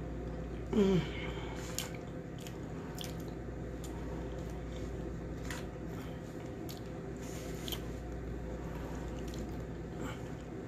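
A person eating: chewing and small scattered clicks of a fork against a plate, over a steady low hum. About a second in, a short falling hum from the voice is the loudest sound.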